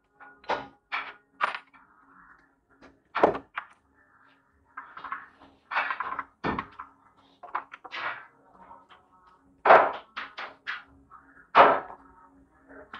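Metal parts and hand tools handled and set down on a workbench while a water pump's aluminium casing is fitted onto its motor: an irregular run of sharp knocks and clanks, the loudest about three seconds in and near the end.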